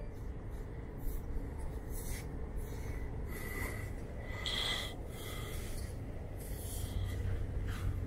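A fingertip scraping strokes into damp beach sand: a dozen or so short, scratchy rasps, one for each stroke of the writing, over a low steady rumble.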